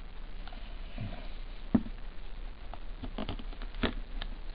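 Hard plastic trading-card holder being handled and shifted by hand: scattered light clicks and taps, the sharpest about two seconds in and a cluster near the end, over a steady low hum.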